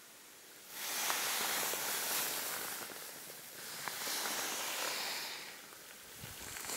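Rustling hiss of grass and leaves brushing close to the microphone, with a few faint clicks. It rises suddenly about a second in, eases off twice, then cuts off abruptly.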